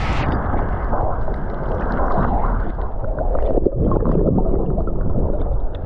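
Muffled underwater sloshing and gurgling picked up by an action camera submerged in shallow reef water, with scattered small clicks and pops. The sound turns dull a moment in as the camera goes under.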